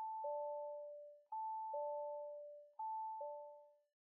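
An electronic two-tone ding-dong chime, high note then lower note, like a doorbell. It repeats about every second and a half, each pair fading out, and the last one dies away near the end.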